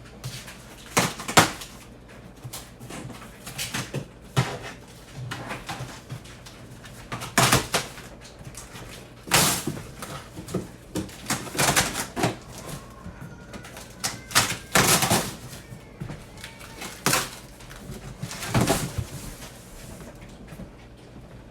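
Irregular knocks, clatter and rustling of packaging as the parts of a lighting stand are unpacked and handled. A few louder knocks stand out, about a second and a half in and again around the middle.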